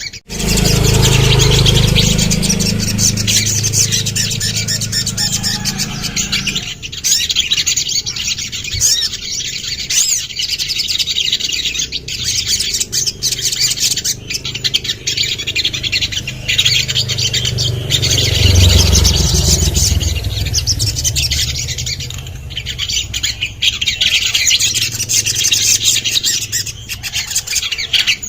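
Sogon (sogok ontong), a small Indonesian songbird, singing a fast, continuous stream of high chirps and trills. A low rumble runs under the song at the start and again about two-thirds of the way through.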